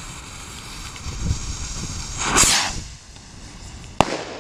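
Firework rocket's lit fuse hissing, then the rocket takes off with a loud whoosh about two and a half seconds in. A single sharp bang follows near the end.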